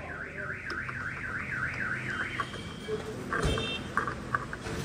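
Electronic warbling alarm tone, rising and falling in pitch about four times a second for a little over two seconds, then a few short high beeps.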